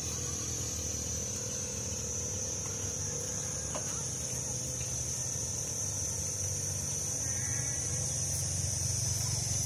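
Steady, high-pitched insect chorus with no break, over a low steady hum.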